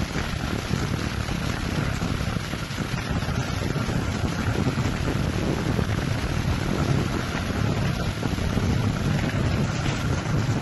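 Face mask production machine running: a steady mechanical hum and whir with a faint steady high tone.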